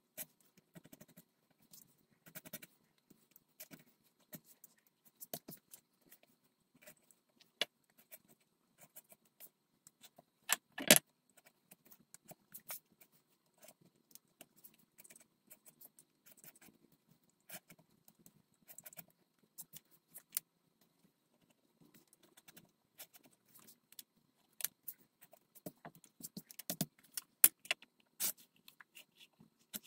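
Sparse small clicks and light scrapes of a hand knife cutting openings out of leather on a stone countertop, with one louder knock about eleven seconds in.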